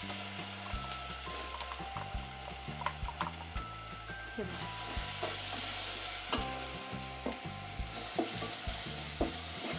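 Chopped onions frying in hot oil in an aluminium pot, a steady sizzle that grows stronger about halfway through as ground masala paste is tipped in and stirred. The spatula scrapes and knocks against the pot.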